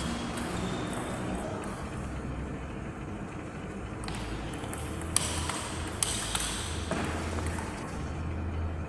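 Table tennis ball ticking off the bats and table during a rally: a handful of sharp, spaced-out hits, the loudest about five seconds in, over a low steady hum.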